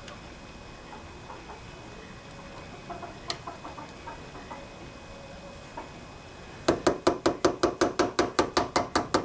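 Carburetor float bowl screw being tapped loose with a pointed steel screw held in its filed-off head. A few faint handling clicks, then about seven seconds in, rapid even metallic tapping, about five taps a second.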